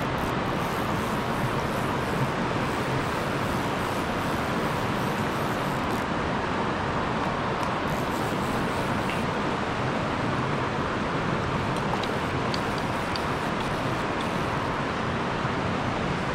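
Steady rush of river water flowing, an even hiss that does not change.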